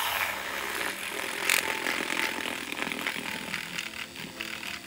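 Handheld battery-powered milk frother running, its wire whisk spinning in milk in a small pitcher and whipping it to foam; a steady buzzing whir, briefly louder about a second and a half in.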